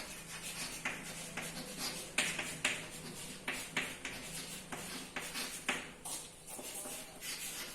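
Handwriting: a run of short, irregular scratchy strokes and light taps of a pen or chalk on a writing surface.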